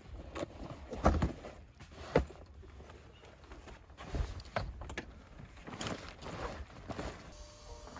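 Luggage being loaded into a car boot: irregular thumps and knocks of bags being set down and shifted, the two sharpest about a second and two seconds in, with handling noise between them.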